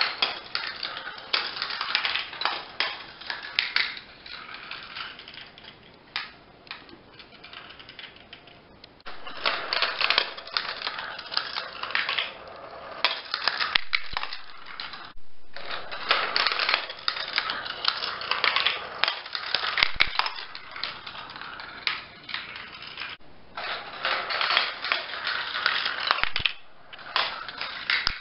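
Steel marbles rolling and clattering through a plastic GraviTrax marble run: a dense stream of clicks and rattles as they drop through the track pieces, coming in bursts with short pauses between them.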